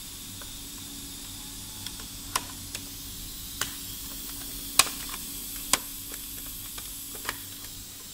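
Light, sharp clicks and taps of plastic parts being handled inside an opened LCD projector, around the focus gear ring and its bracket: about a dozen scattered, irregular clicks, the loudest about five seconds in, over a steady hiss.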